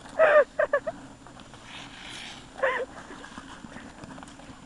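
A person's short, high-pitched vocal yelps: three in quick succession in the first second and one more about two and a half seconds in.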